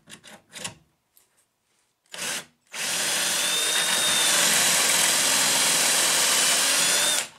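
Power drill boring a pocket hole into a wooden 2x3 through a pocket-hole jig with a stepped bit: a short blip about two seconds in, then a steady run of about four and a half seconds with a faint high whine that stops just before the end. A few light clicks of handling come first.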